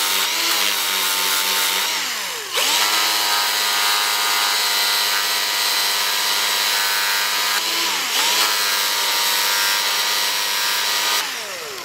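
Cordless Ingersoll Rand polisher spinning an ultra-fine surface prep disc against a corroded brake wheel cylinder piston: a steady motor whine over the hiss of the abrasive scrubbing corrosion off the metal. The motor's pitch drops and picks back up twice, then winds down near the end.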